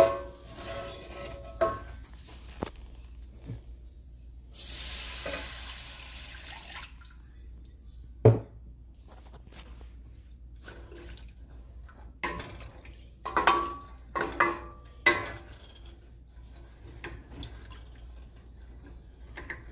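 Kitchen cooking sounds: scattered knocks and clinks of utensils against pots and containers, with a run of louder clanks about two-thirds of the way through. About five seconds in comes a steady hiss lasting about two seconds.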